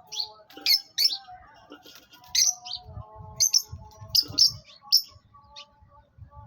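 Birds chirping: short, sharp high calls at irregular intervals, about a dozen of them, with quieter steady tones underneath.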